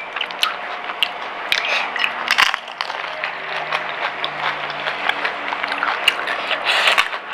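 A person eating pani puri: the crisp hollow puri shells crunch and crack with irregular sharp clicks while being chewed.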